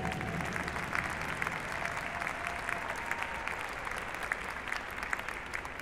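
Audience applauding, with single claps standing out, as the band's last held note fades away at the start.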